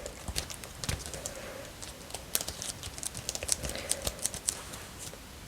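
Fingertips tapping lightly and irregularly on a hard surface: a run of small sharp clicks, several a second, loosely like typing.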